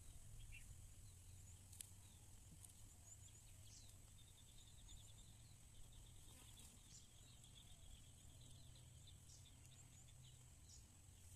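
Near silence: faint outdoor background with a low rumble, a faint steady high tone, and a faint rapid high chirping in the middle.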